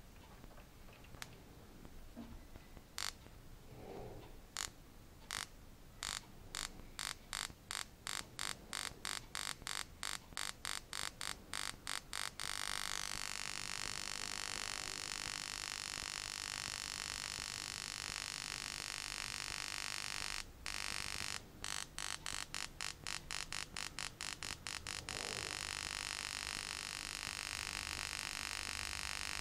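Spark plug arcing across its gap, fired by a CDI unit and ignition coil on a 12-volt supply. Single sharp snaps come faster and faster, to about four a second, then run together into a continuous buzz about twelve seconds in. The buzz breaks back into separate snaps for a few seconds past the twenty-second mark, then runs steady again.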